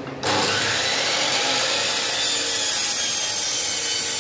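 DeWalt miter saw started up about a quarter second in and cutting through a wooden board, running steadily under load.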